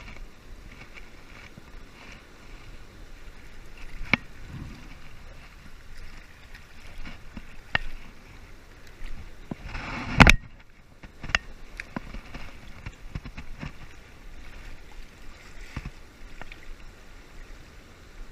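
Steady rush of a fast-flowing river, running high after rain, spilling over a weir. Sharp knocks and clicks from handling the fishing rod come through several times, the loudest about ten seconds in.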